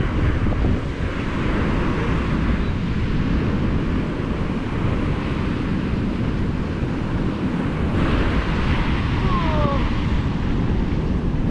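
Ocean surf washing onto the beach under strong wind buffeting the microphone, with the wash growing louder about eight seconds in as a wave breaks.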